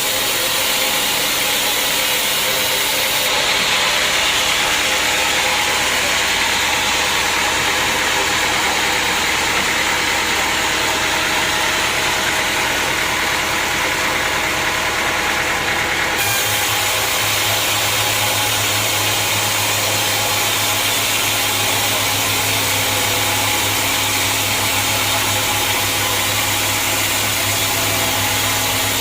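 Sawmill machinery running with a steady, loud mechanical din. Its low hum shifts abruptly about halfway through.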